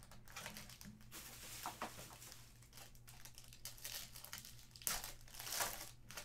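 Foil wrapper of an Upper Deck Stature hockey card pack crinkling as it is handled and torn open, in irregular rustles that are loudest about five seconds in.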